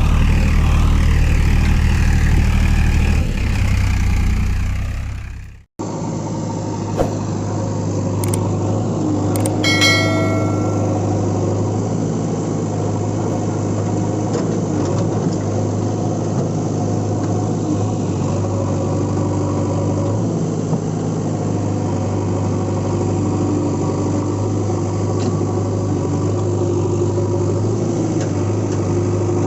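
Engine running steadily. About six seconds in, the sound cuts off sharply and a different steady engine sound takes over. A few clicks and a short pitched tone come about ten seconds in.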